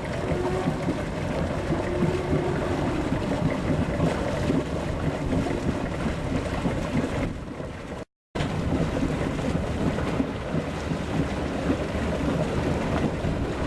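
Motorboat running on open water, with wind buffeting the microphone and water rushing past. The sound cuts out for a moment about eight seconds in, then picks up again.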